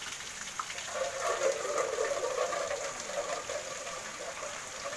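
Steady rain falling, with a louder gush of water splashing from about a second in until about three and a half seconds.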